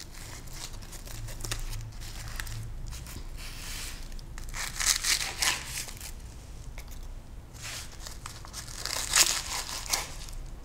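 Dry sheets of toasted nori seaweed crinkling and tearing as they are pressed, rolled and handled. There are two louder spells of crackling, about five seconds and about nine seconds in.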